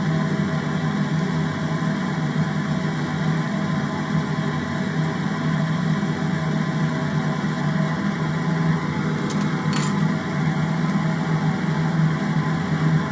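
Steady mechanical hum, like a small motor or fan running, with two faint ticks about ten seconds in.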